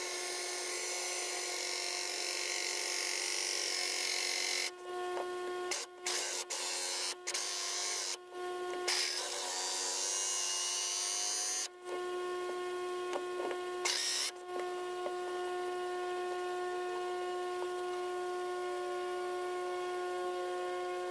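Cordless drill running a hole saw in reverse against a fiberglass tank wall: a steady motor whine that stops and restarts several times between about five and fourteen seconds in, then runs on steadily. Running in reverse gives a slower but cleaner cut, with less splintering of the fiberglass and gel coat.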